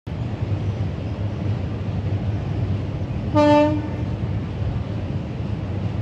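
Steady low rumble with one short, loud horn blast about three and a half seconds in.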